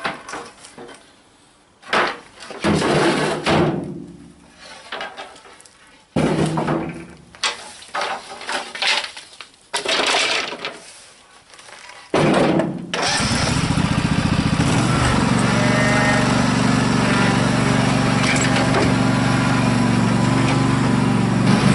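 Rough-sawn wooden boards handled and stacked onto a utility trailer, with irregular knocks and clatter of wood on wood. About twelve seconds in, a riding lawn tractor's engine starts and then runs steadily.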